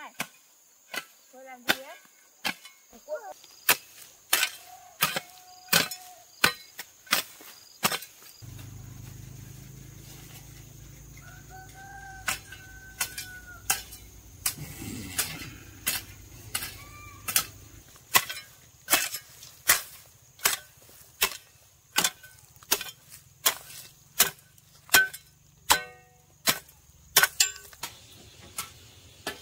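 A hoe chopping into soil in a steady rhythm, a little more than one strike a second, with a pause of a few seconds partway through.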